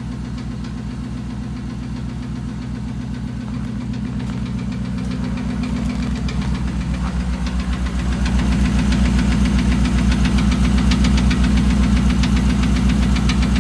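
A 2008 Dodge Ram 1500's 5.7 Hemi V8 running with a steady, rapid knocking. The sound grows louder from about a third of the way in and then holds. Mechanics could not identify the knock and say the engine needs replacing.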